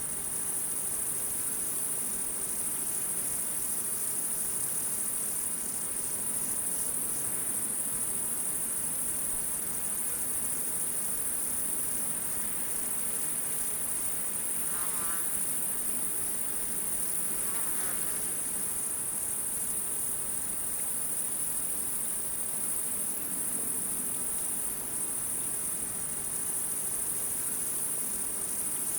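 Night insects singing in a steady, unbroken high-pitched chorus. Two short wavering calls sound briefly about halfway through.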